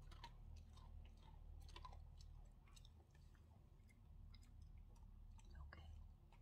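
Faint crunching and scattered small clicks of a dog chewing a treat, over a low steady hum.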